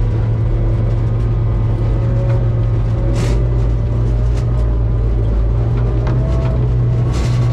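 Snobear tracked ice vehicle's engine running steadily under way, heard from inside its cabin as a loud, even low drone.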